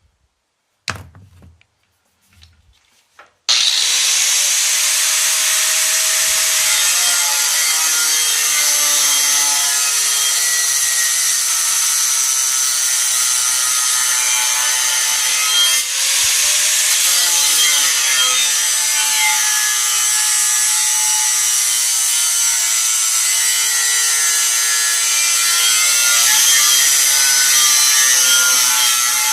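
Angle grinder with a cut-off wheel cutting through a steel I-beam, running steadily with its pitch wavering as the wheel loads up in the cut. A sharp knock comes about a second in, and the grinder starts abruptly at full level about three and a half seconds in.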